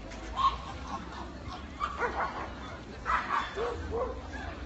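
Dogs giving several short yips and barks at intervals.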